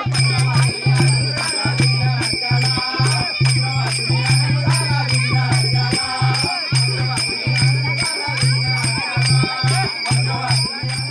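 Ganpati devotional music with voices over a fast, even jingling beat of about four strokes a second and a pulsing low note.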